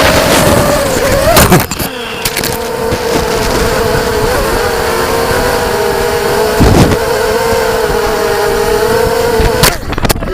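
Racing quadcopter's electric motors running with a steady, slightly wavering high whine. Sharp knocks come about a second and a half in, near the middle and near the end.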